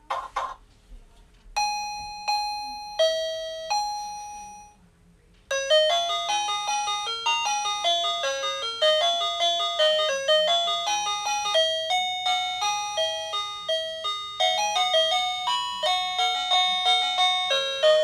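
KEUR wireless burglar alarm/doorbell unit playing its electronic doorbell chime. It opens with four held ding-dong notes, then after a short pause plays a fast tune of bell-like electronic notes for about thirteen seconds.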